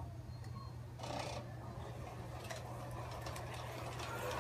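USA Trains Hudson large-scale model steam locomotive running along the track, freshly lubricated: a steady low hum from its electric drive motor and gearing with the faint noise of its running gear, and a short hiss about a second in.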